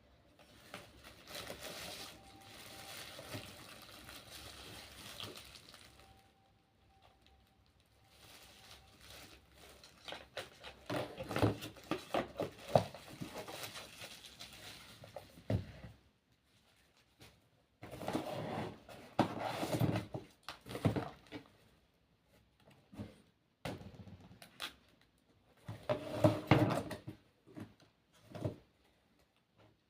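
Product packaging being unwrapped and handled: rustling and crinkling, then bursts of clicks and knocks as items are moved about.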